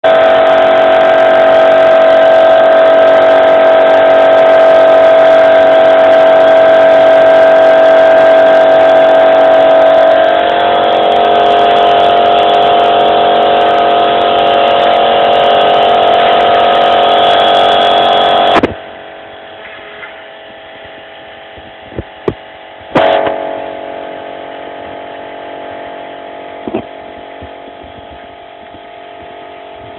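A small electric motor giving a steady, loud, high-pitched whine. Its pitch steps slightly lower about ten seconds in, and the whine turns much quieter about two-thirds of the way through, with a few sharp clicks after it.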